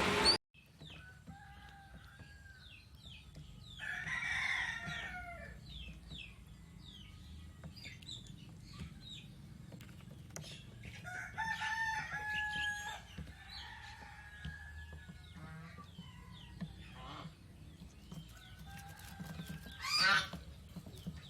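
Birds calling: a running string of short, high downward chirps, with a few louder, longer calls about four seconds in, around twelve seconds in (held on a steady pitch) and near the end.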